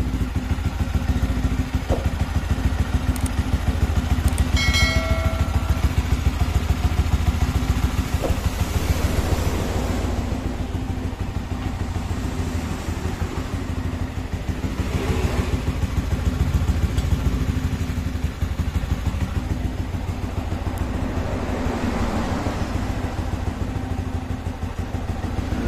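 Yamaha WR 155's single-cylinder engine idling steadily, run after a thermostat replacement to bleed air from the cooling system.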